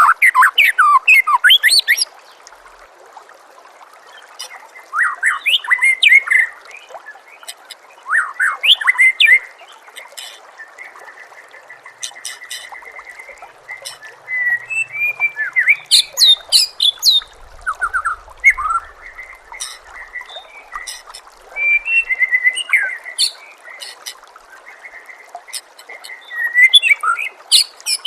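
White-rumped shama (murai batu) singing, loud varied phrases of whistles, sweeps and a rapid trill coming in bursts every few seconds. Under the song runs a steady trickle of water.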